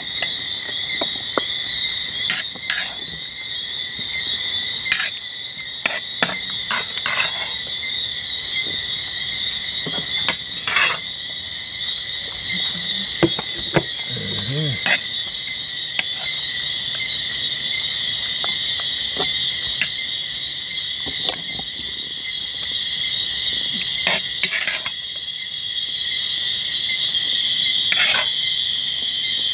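A steady high-pitched chorus of night insects, with scattered clinks of a metal spoon against a steel pot and china plates as stew is dished out.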